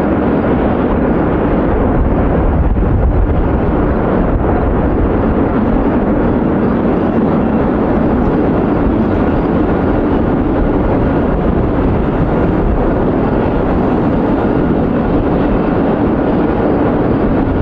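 Airbus A380 airliner on landing approach, its four jet engines making a loud, steady roar as it passes close by.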